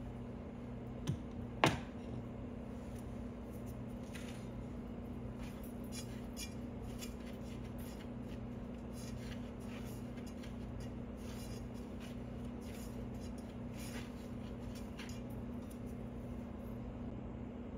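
A hand mixing dry flour in a stainless steel bowl: two sharp clicks about a second and a half in, then faint scattered light ticks as the hand works the flour, over a steady low hum.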